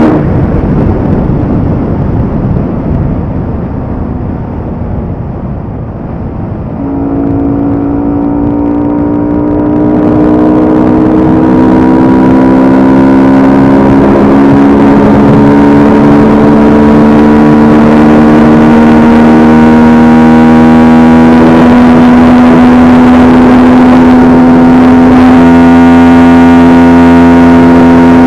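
Yamaha R15M's single-cylinder engine breathing through a high-performance air filter. The revs drop off at the start into a rough stretch, then from about seven seconds in the engine note climbs slowly and steadily in pitch.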